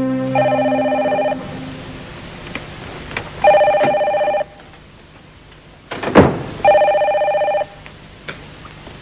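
Telephone ringing three times, each ring an electronic trill about a second long, spaced roughly three seconds apart. The tail of background music fades out at the start, and a short loud sound comes just before the third ring.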